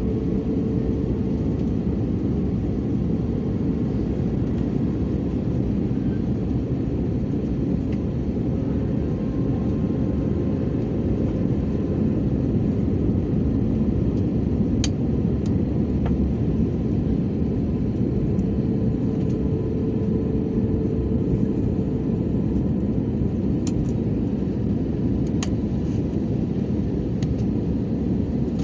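Steady low drone of a passenger jet's engines and rushing air, heard from inside the cabin, with a few faint clicks in the second half.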